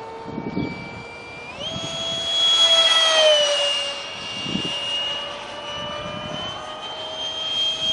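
70mm electric ducted fan of an RC foam jet whining at high speed. Its pitch steps up about a second and a half in as the throttle is opened, then settles and holds. A few brief low rumbles sit underneath.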